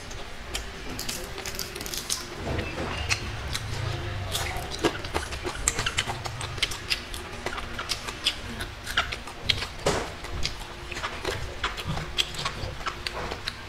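Close-miked eating sounds: chewing rice and dried fish with wet mouth clicks and smacks, several a second.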